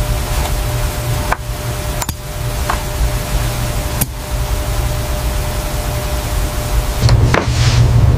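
Metal jewelry clasp clicking as its two diamond-set halves are pushed together and snap shut, a few sharp clicks with the loudest about four seconds in, over a steady low rumble and hiss. A brief rush of noise near the end.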